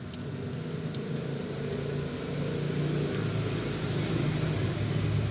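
Low engine rumble from a motor vehicle running nearby, growing gradually louder.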